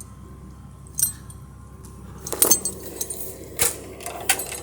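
Steel log-dragging chain being handled and moved by hand, its links clinking and jangling: one clink about a second in, a cluster of clinks midway, then two more near the end.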